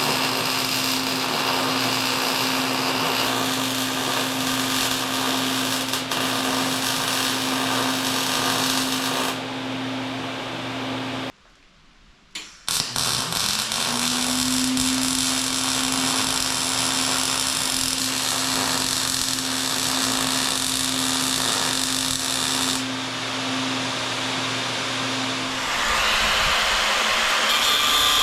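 Electric angle grinder running steadily while cutting steel flat stock. About 11 seconds in it stops for a moment, then winds back up with a rising whine and cuts on, and the sound changes near the end.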